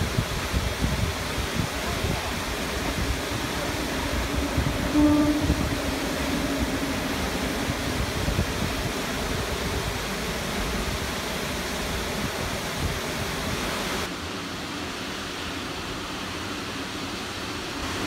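Steady rush of a waterfall, with wind buffeting the microphone. About five seconds in comes a short, pitched, horn-like tone, followed for a few seconds by a faint low hum; at about fourteen seconds the rush drops away to quieter wind.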